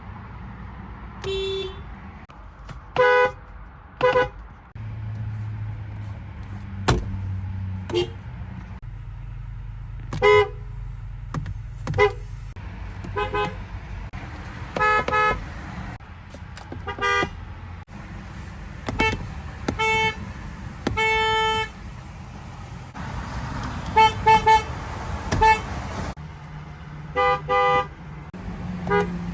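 Car horns sounded in short toots, one car after another at slightly different pitches: mostly quick single or double taps, a few held for about a second, and a fast triple tap around the middle. A steady low hum runs underneath.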